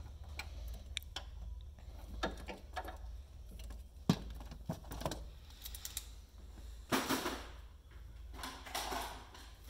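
Hand work on automotive wiring: a crimping tool and wires being handled, with a run of sharp clicks, the loudest about four seconds in, as butt connectors are crimped onto the black wire. Two short rustling scrapes come near seven and nine seconds in, over a steady low hum.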